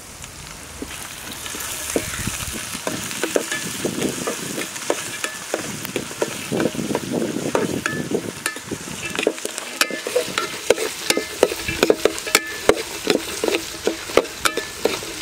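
Chopped ginger and garlic sizzling in hot oil with frying coconut slices and curry leaves in a steel pan, stirred with a steel spoon that scrapes and clicks against the pan. The sizzle builds over the first couple of seconds, and the clicks come more often in the second half.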